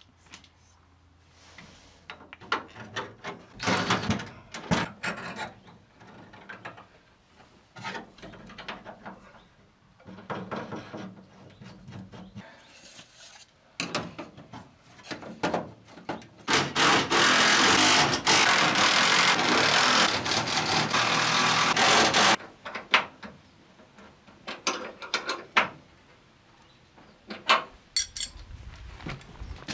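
Knocks, clatter and scraping of panels and tools being worked into a Land Rover seat box as its floor panels are fitted, with a loud steady rasping noise lasting about six seconds midway.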